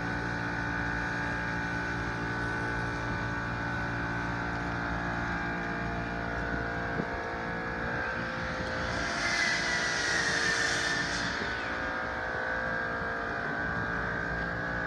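Steady mechanical hum made of several fixed tones, like an idling motor. About nine seconds in, a hiss with a high whine swells for a couple of seconds and fades.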